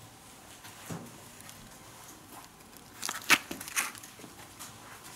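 Faint rustling and light knocks of cardboard firework packets being handled and laid back into a cardboard box, with a short cluster of sharp clicks about three seconds in.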